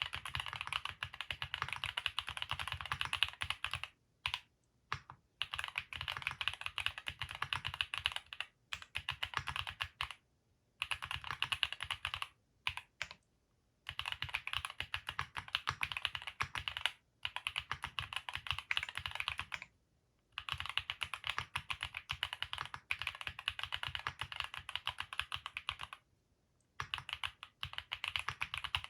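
Typing on a Vertex Arc60 custom mechanical keyboard with Haimu Sea Salt linear switches. Fast, continuous keystrokes come in runs of a few seconds, broken by several short pauses.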